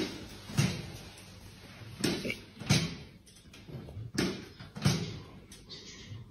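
Metal-frame rocking chair creaking and knocking as it rocks back and forth, a pair of knocks about every two seconds.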